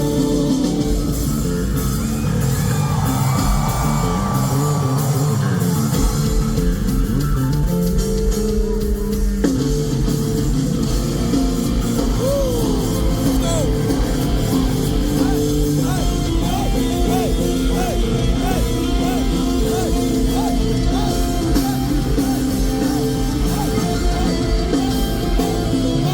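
Live rock band music with electric guitar, bass, drums and keyboard, and a singing voice carrying the melody, played at full volume.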